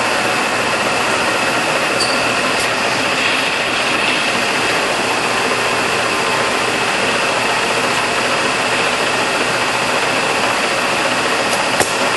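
Hwacheon HL-460 geared-head engine lathe running under power: a steady mechanical whir from its headstock gear train and 7.5 hp drive motor, with a thin high whine held over it. A couple of faint clicks near the end.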